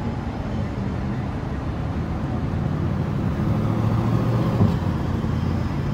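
Chevrolet Corvette C8's mid-mounted V8 running at low speed as the car pulls through an intersection and passes. It is a steady low engine note that grows gradually louder toward the end.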